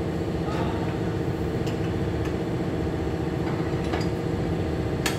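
Steady low mechanical drone of running machinery, with a few light clicks of metal parts being handled.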